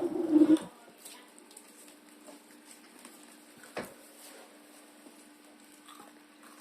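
Mealtime eating sounds: a brief loud mouth noise at the start, then a single sharp knock a little over halfway through, over a steady low hum.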